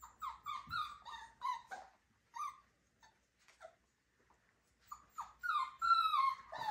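Miniature schnauzer puppy whining: a quick run of short, high cries in the first two seconds, a lull with a few faint ones, then longer cries that fall in pitch near the end.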